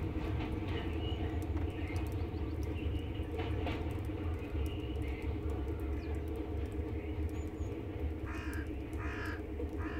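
Crows cawing now and then, with three louder harsh caws in quick succession near the end, over a steady low rumble.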